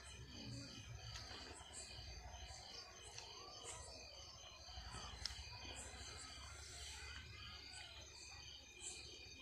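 Faint chorus of crickets chirping in a steady, even rhythm, with short high chirps about once or twice a second over a low rumble.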